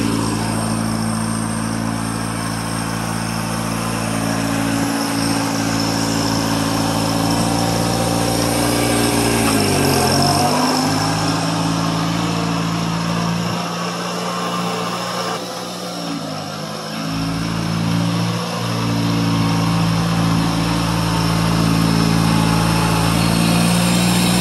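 Satoh S650G tractor engine running steadily. About ten seconds in its speed sags briefly and then picks back up.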